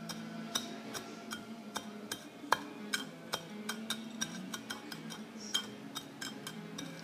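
Rim of an upturned martini glass twisted and tapped against a ceramic plate of crushed Oreo cookie crumbs: a run of irregular small clicks and ticks of glass on china, a few sharper ones among them.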